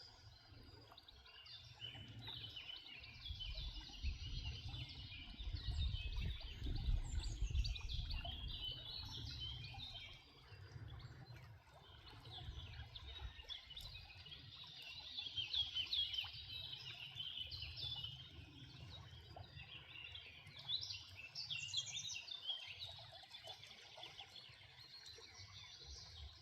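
Several songbirds chirping and trilling, with a brief lull about ten seconds in, over a low rumble that is loudest about four to nine seconds in.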